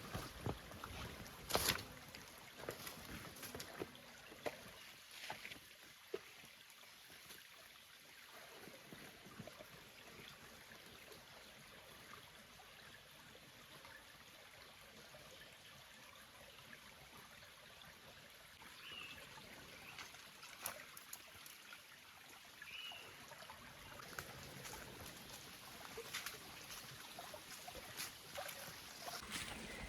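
Footsteps on the rainforest floor: a run of crunching, knocking steps over the first few seconds and again near the end. In between, a faint steady forest background with two short chirps.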